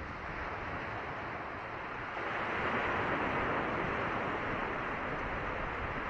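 Ocean surf breaking and washing over a rocky coral-rubble shore, swelling louder about two seconds in as a wave comes in.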